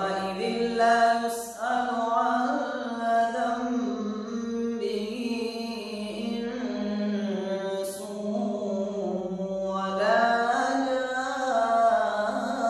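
A man's voice reciting the Quran in a slow, melodic chant, drawing out long held notes in phrases separated by short breaths.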